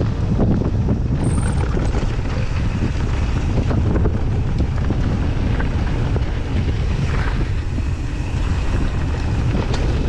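Wind rushing over the microphone and tyres rolling over loose dirt and gravel as a mountain bike descends a trail, with scattered clicks and rattles from the bike over the rough ground.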